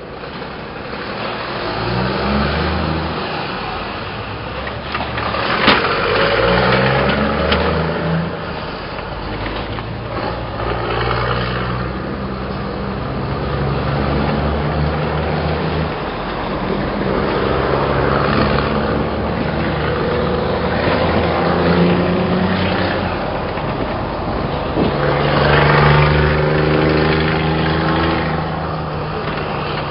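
Scania R420 truck with an open exhaust accelerating away from a standstill and shifting up through the gears, its engine note climbing and dropping back at each of several shifts. A single sharp click sounds about six seconds in.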